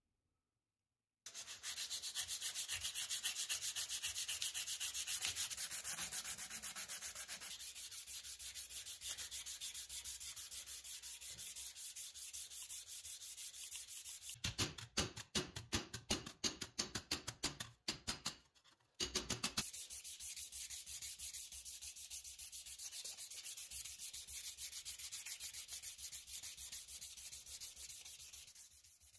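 Flat brass toaster plate being hand-sanded with a green abrasive sheet, starting about a second in with fast, even back-and-forth strokes. About halfway through, the strokes turn slower, more separate and louder for a few seconds, with a short break, before the fast steady rubbing resumes.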